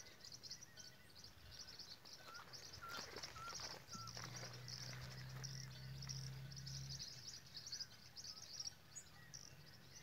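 Faint outdoor ambience: small birds giving a few short, high chirps a couple of seconds in, over a steady pulsing insect trill. A low steady hum runs for about three seconds in the middle.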